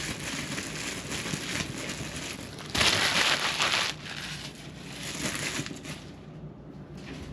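Plastic shrink wrap crinkling as it is pulled off a cardboard product box. A louder, sharper burst of crackling comes about three seconds in and lasts about a second, then it goes softer.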